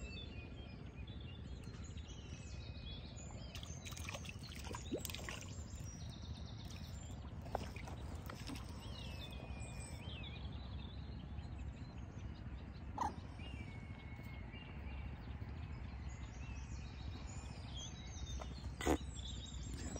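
Outdoor lakeside ambience: a steady low rumble with birds calling now and then, and a few sharp clicks of fishing tackle being handled, the loudest near the end.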